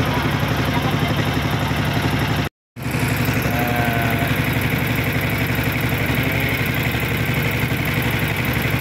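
Engine of a small wooden passenger boat running steadily under way, with a fast, even putter. The sound drops out completely for a moment about two and a half seconds in.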